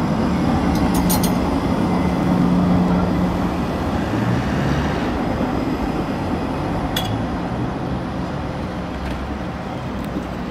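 Articulated tram passing close by: a steady rolling rumble with a low motor hum, loudest in the first few seconds, then slowly fading as it pulls away.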